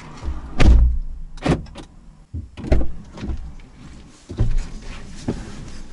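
A series of about six dull knocks and thumps, irregularly spaced roughly a second apart.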